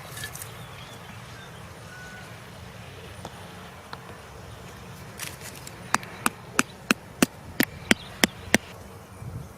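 A quick series of about ten sharp strikes, roughly three a second, starting about six seconds in, like a blade chopping wood, over a steady low rumble.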